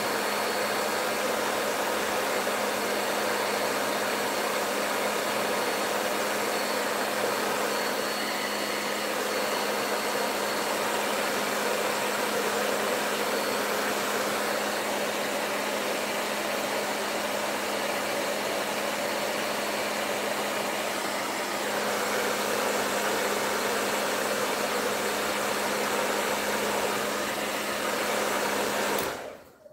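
Hand-held hair dryer blowing steadily: a constant rush of air with a steady low hum under it, switched off suddenly near the end.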